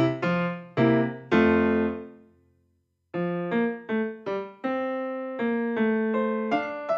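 Background piano music: a phrase ends on a chord that dies away about two seconds in, there is a brief silence, then the piano starts again just after three seconds.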